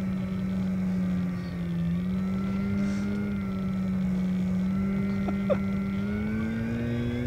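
Electric motor and propeller of an FMS Pitts RC biplane running in flight with a steady droning hum. Its pitch dips slightly about two seconds in and rises near the end as the throttle changes.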